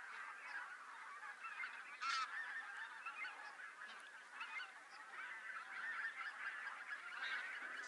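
A flock of wild geese calling in flight, many overlapping short calls at once, with one louder call about two seconds in.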